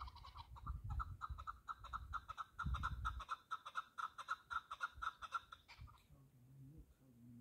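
Partridge calling: a fast run of short clucking notes that stops about six seconds in.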